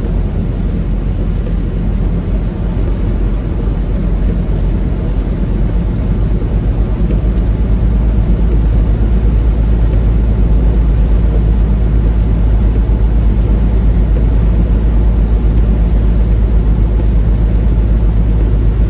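Steady low drone of a semi truck on the road, engine and road noise together, growing louder about six seconds in and then holding steady.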